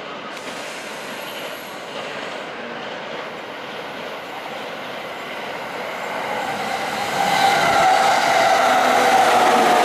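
JR East E231 series electric train arriving at a station platform, its running noise growing louder as the cars draw alongside about seven seconds in. A steady whine that falls slightly in pitch rises over the rumble as it slows.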